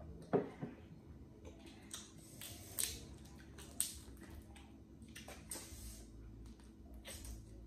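Boiled crawfish shells being cracked and peeled by hand, giving several sharp snaps and crackles, with wet squishing and chewing. A dull knock about half a second in, the loudest sound, as a glass of iced cola is set down on the table.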